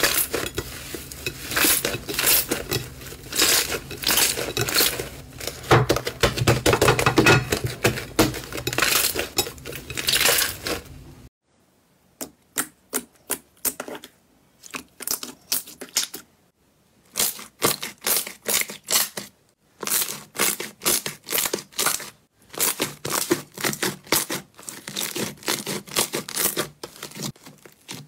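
Hands squishing and kneading slime, with dense crackling and squelching for about the first eleven seconds. After a break the sound turns to separate short pops and clicks as another, bubbly clear slime is stretched and pressed.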